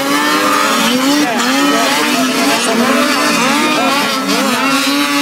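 Several racing snowmobile engines revving hard, their pitches rising and falling and overlapping as the sleds accelerate past.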